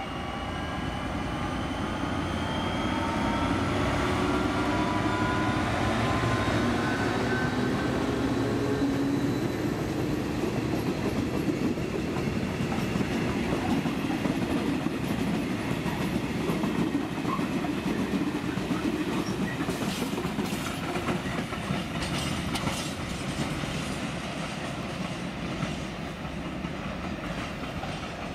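A diesel locomotive hauling a freight train of flat wagons passes at speed, its engine note rising over the first several seconds. The wagons follow with a steady rumble and clickety-clack of wheels over rail joints, fading near the end as the train moves away.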